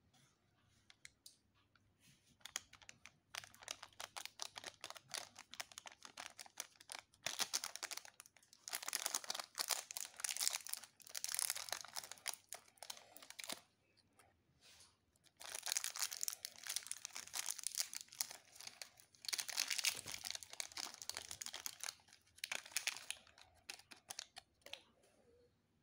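Shiny foil candy sachet crinkling and tearing open between the fingers. It comes in spells of dense crackling, with short pauses about halfway and again a few seconds later.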